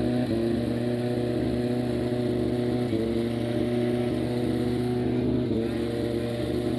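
Grand Prix racing motorcycle engine running on a rear paddock stand, warming up with the revs held steady. The pitch shifts slightly about every two and a half seconds.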